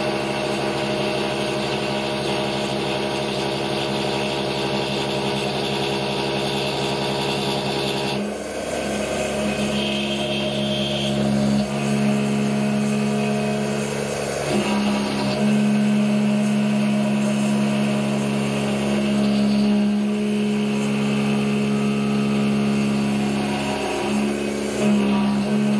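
CNC-converted Sieg X2 mini mill running a program: the spindle turning and the stepper motors driving the axes as the end mill cuts a pocket, a steady machine whine whose pitch pattern shifts about a third of the way in and changes briefly several times as the toolpath moves change.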